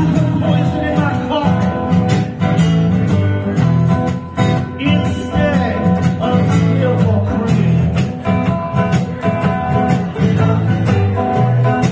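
An acoustic guitar and a hollow-body electric guitar played through a small amplifier, the two playing a blues tune together.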